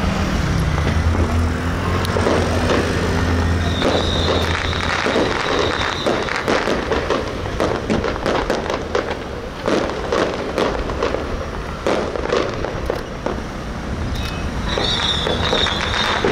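Firecrackers going off in rapid, irregular strings of sharp cracks. A high whistle sounds twice, about four seconds in and near the end.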